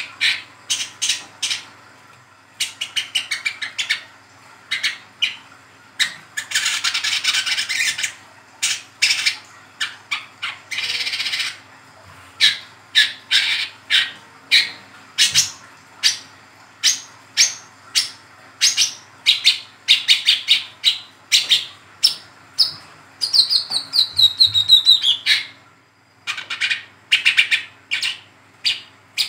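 A juvenile brown-throated sunbird ('wiceh trotol') calling in its chattering 'ngeriwik' style. It gives a busy string of sharp, high chirps broken by runs of rapid twittering, with a falling trill shortly before the end.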